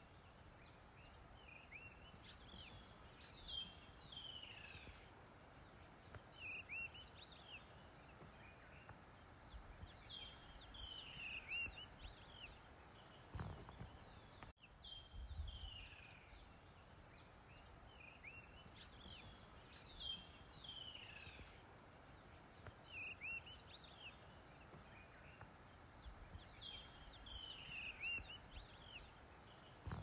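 Birds calling with short, whistled, falling notes every second or two over a steady high insect drone. Midway the sound briefly drops out and the same run of calls then repeats, like a looped ambience recording.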